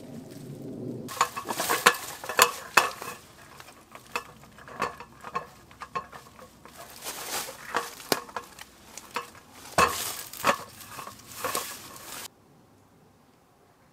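Folding camp table being set up: its metal frame and slatted wooden top clatter, click and knock in quick, uneven handling sounds, stopping abruptly near the end.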